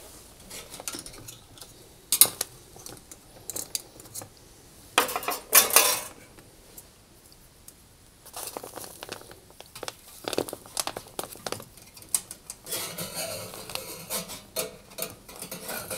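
Scattered metallic clinks and knocks from hands working a thermostat capillary tube through the hole in a cooker oven's roof. A stretch of rustling with small clicks follows near the end.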